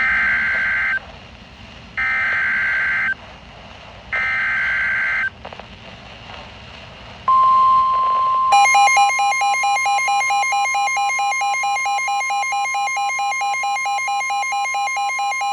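NOAA Weather Radio alert lead-in: three one-second bursts of the SAME digital header, a buzzy data screech about two seconds apart, then the steady 1050 Hz warning alarm tone, joined about a second later by a fast pulsing electronic alarm.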